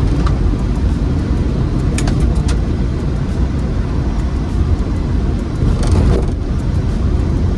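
Rover SD1 Vitesse's 3.5-litre V8 running while the car is driven, a steady low engine and road rumble, with a few short clicks or rattles about two seconds in and another brief noise about six seconds in.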